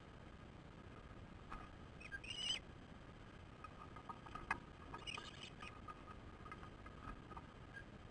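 Ospreys at the nest giving two short, high-pitched chirping calls, one about two and a half seconds in and another about five seconds in, over faint hiss.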